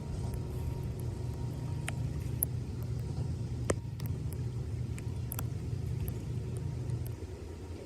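A steady low rumble with a few sharp clicks, easing off about seven seconds in.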